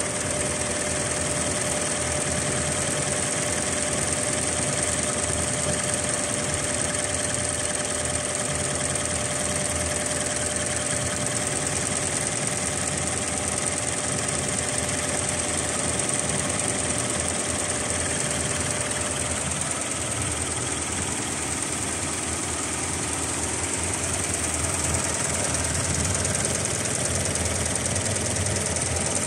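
Richpeace computerized embroidery machine running steadily, its needle stitching fast as the cording foot lays cord onto fabric. A faint steady whine in the mechanism stops about two-thirds of the way through.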